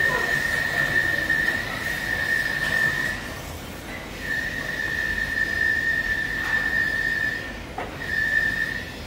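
A steady high-pitched whine, a single unwavering tone, that drops out for about a second a few seconds in and again briefly near the end.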